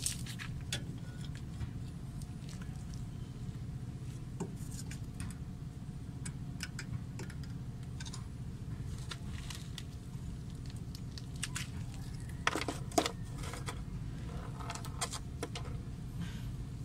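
Scattered metallic clicks and clinks of pliers working on the shoe springs and hardware of a rear drum brake, with a louder cluster of clanks about twelve seconds in, over a steady low background hum.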